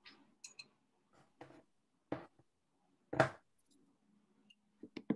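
A handful of faint, short, irregular clicks and knocks picked up by a video-call microphone, the loudest about three seconds in.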